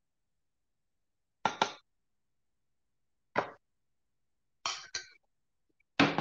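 A spoon knocking against a stainless-steel pot as rice is scooped out onto a plate, in four short clanks with silence between.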